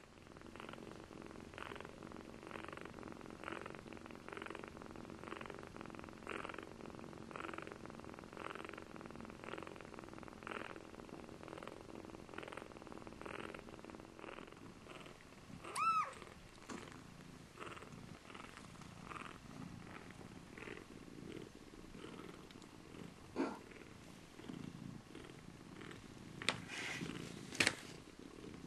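Domestic cats purring, a steady pulsing rhythm of about one and a half beats a second. A short high sound cuts in about halfway, and a few sharp clicks come near the end, the last two the loudest.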